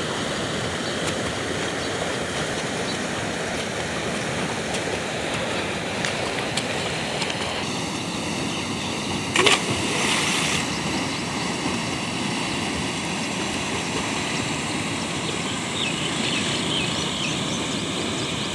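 Fast-flowing canal water rushing steadily, with a brief loud splash about halfway through.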